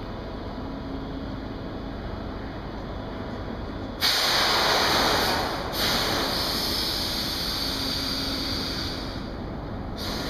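A high-speed electric train at a station platform lets out a sudden loud hiss of compressed air about four seconds in. It breaks off briefly after a second and a half, then starts again and dies away over several seconds, over a steady station background.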